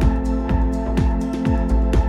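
Electronic background music with a steady beat: a kick drum about twice a second over held synth tones.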